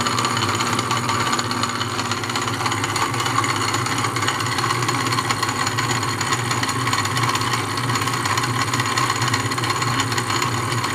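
A belt-driven 1920s Wade bench lathe running under its electric motor and flat belt, with a steady hum and a constant fine clatter from the bearingless spindle, which has just been greased.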